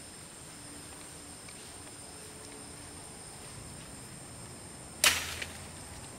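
A single sharp chop of a machete blade into a woody stem about five seconds in, over a faint steady high-pitched drone in the background.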